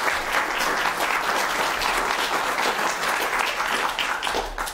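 Audience applauding, the clapping fading away at the end.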